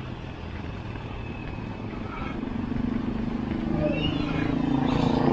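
Motor vehicle engine running and growing steadily louder from about halfway in, as it draws near. A few short rising chirps sound over it near the end.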